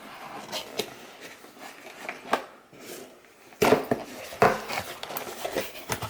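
Hands handling a new lever-action door lock set and its keys: light rustling and scattered metallic clicks, sharper and louder from about three and a half seconds in.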